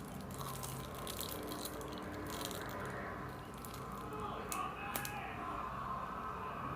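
Slime being squeezed and worked by hand, giving small wet clicks and pops, most of them in the first couple of seconds and a couple more about five seconds in.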